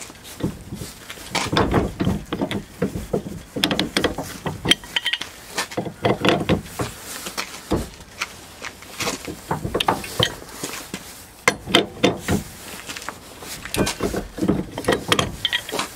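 Wrenches clinking and scraping on the steel nut of a 1-inch-shank hitch ball as it is turned tight on the drawbar: a run of irregular metal clicks and knocks, some briefly ringing. The nut is being drawn down onto U-Haul's nylon washer, which splits once the nut reaches its torque.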